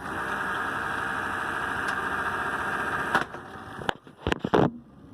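SKLZ Lightning Strike pitching machine's motor running with a steady whir, which stops about three seconds in. A few sharp knocks follow, the loudest near the end.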